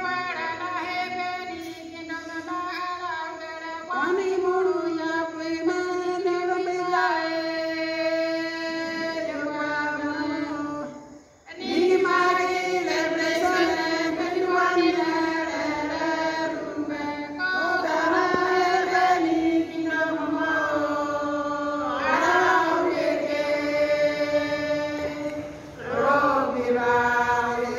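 Group of women singing together in long, held phrases, with a short break about eleven seconds in before the singing resumes.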